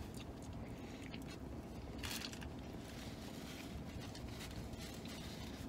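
Faint chewing of a burger mouthful, with small wet clicks and a brief soft noise about two seconds in, over a low steady hum.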